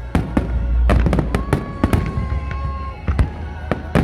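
Fireworks going off in a rapid, irregular string of sharp bangs and crackles over a constant deep rumble.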